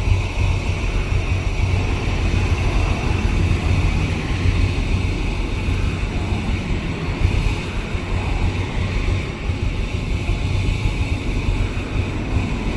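2007 Dodge Ram's 5.7 L Hemi V8 being cranked over on the starter in clear-flood mode, held steadily for a relative compression test. The mechanic reads that test as showing low compression on cylinder five.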